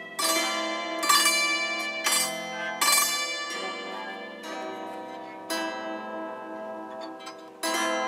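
Antique 1912 Phonoharp Celestaphone keyboard zither played from its keys, the key hammers striking metal strings. About seven notes are struck in a slow melody, each ringing out bright and fading.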